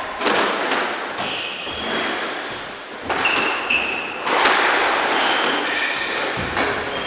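Squash rally: several sharp hits of the ball off rackets and the court walls, echoing in the enclosed court, with short squeaks from shoes on the wooden floor.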